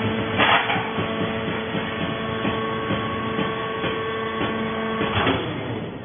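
Vertical hydraulic fibre baler's pump unit running with a steady whine while the lever-operated ram raises the press plate off a compressed fibre bale. There is a brief hiss about half a second in and another about five seconds in, after which the running sound drops off.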